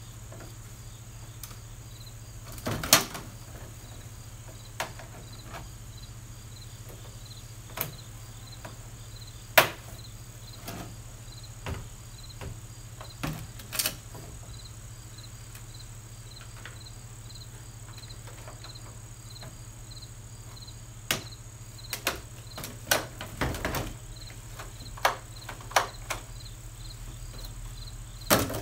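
Scattered clicks and knocks of hard plastic parts being handled and fitted together while assembling a Suncast storage chest, loudest in a cluster near the end. A cricket chirps steadily in the background in an even rhythm.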